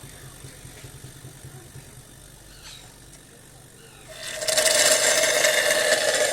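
Refrigerator compressor humming, then about four seconds in a loud hiss of air rushing through its pipe with a steady whistling tone, lasting a little over two seconds and cutting off sharply.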